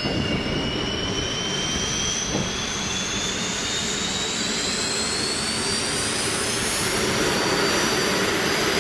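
Bayraktar Kızılelma unmanned fighter's turbofan jet engine starting up on its first engine run: a steady rush with a high whine that climbs slowly in pitch as the turbine spools up, growing a little louder near the end.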